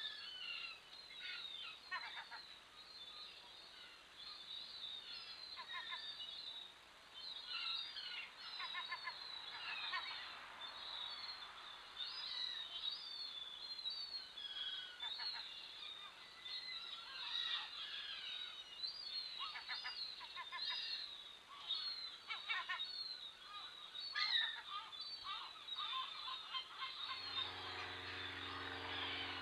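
Background birdsong: many short, high chirps and twittering calls from small birds, with a few lower calls mixed in. A low steady hum comes in near the end.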